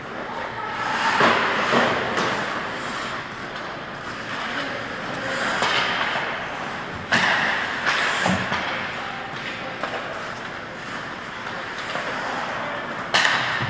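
Ice hockey play in an indoor rink: the clatter of sticks, skates and puck, with sharp knocks about seven seconds in and just before the end.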